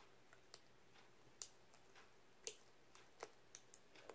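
Clear tape seal being peeled slowly off a cardboard box, giving faint, irregular sharp ticks, about half a dozen.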